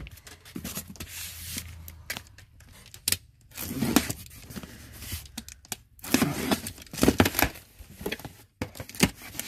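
Cardboard box being handled on a tabletop, then a box cutter slitting the packing tape along its top, with irregular scraping and tearing of tape and cardboard, busiest in the second half.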